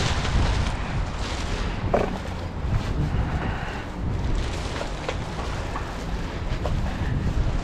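Outdoor rumble of wind buffeting the microphone over distant street noise, uneven and strongest in the low end, with no distinct event standing out.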